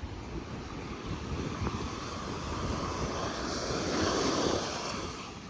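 Ocean surf washing on the rocky shore with wind buffeting the microphone; a wave swells louder around four seconds in, then eases.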